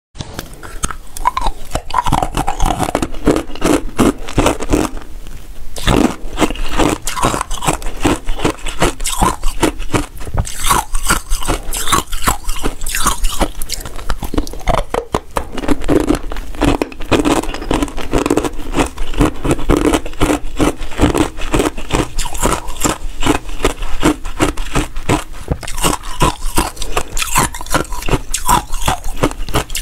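Close-miked biting and crunching of frozen basil-seed ice pieces, a dense, rapid run of sharp cracks as the ice breaks and is chewed between the teeth.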